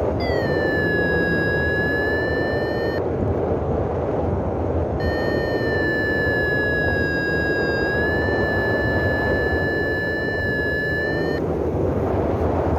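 Paragliding variometer's continuous sink tone, a steady tone that slightly wavers in pitch, sounding for about three seconds, stopping, and sounding again from about five seconds in to near the end: the warning that the glider is sinking. Under it, strong wind rushing over the microphone.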